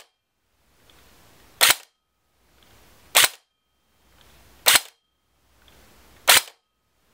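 Airsoft M16 with APS blowback internals firing single shots into a chronograph: four sharp cracks about a second and a half apart, each preceded by a short low hum.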